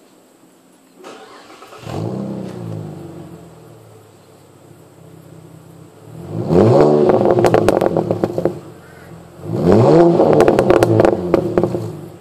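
Car engine revved through an exhaust with the rear muffler removed: a short blip about two seconds in, then two longer revs, each breaking into a string of crackles and pops as the revs drop. The owner calls it a fair bit of crackle and is pretty sure the rumble comes from the pipe stepping from small to big and back to small.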